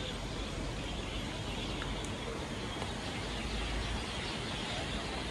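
Steady outdoor background noise with a low rumble underneath, no distinct events standing out.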